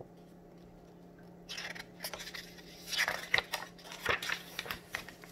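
Pages of a paperback picture book being turned and handled: paper rustling and crackling with a few sharp little clicks, starting about a second and a half in.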